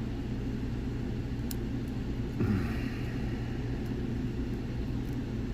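Steady low background rumble, with a few faint light clicks and a short scrape of a lock pick working the pins of a lock.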